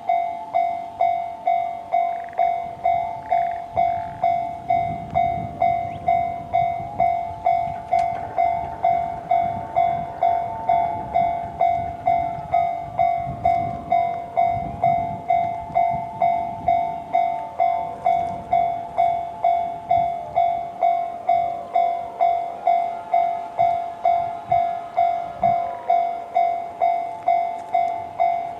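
Japanese railway level-crossing warning bell, the JR standard electronic tone, ringing in an even, pitched ding-ding at nearly two strikes a second. In the middle, the low rumble of a JR E131 series electric train passing over the crossing joins it.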